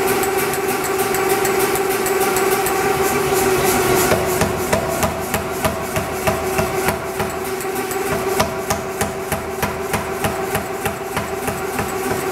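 Nazel self-contained air power hammer striking a hot axe head in rapid, even blows while forge welding it, over the steady hum of the running hammer. The blows grow sharper and more distinct about four seconds in.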